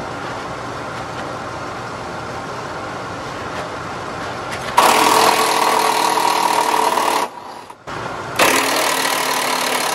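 Impact wrench running in two long bursts, about two and a half seconds and then a second and a half, as it breaks loose a front crossmember mounting bolt. A steady background noise runs underneath before the first burst.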